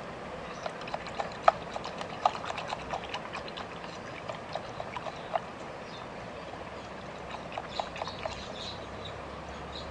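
A stick stirring insecticide into water in a plastic jug, knocking against the jug in quick, irregular clicks. The clicks come in two runs, a long one and then a shorter one near the end.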